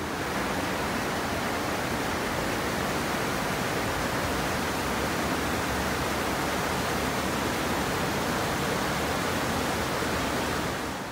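Shallow mountain river rushing over a rocky bed and small cascades, a loud, even rush of water.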